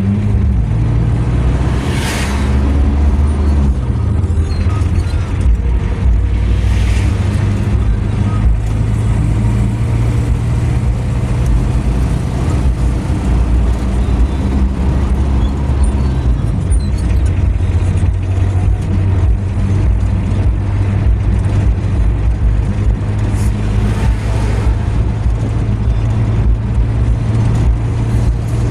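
A vehicle's engine and tyre noise while driving on a highway, heard from inside the cabin as a steady low hum. A few brief swishes of noise come about two, seven and twenty-four seconds in.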